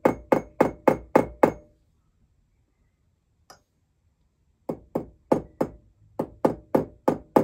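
Small jeweller's hammer tapping a metal bezel seat on a steel mandrel, closing its ends together for soldering. The taps are quick and ringing, about four a second, in two runs with a pause of about three seconds between them.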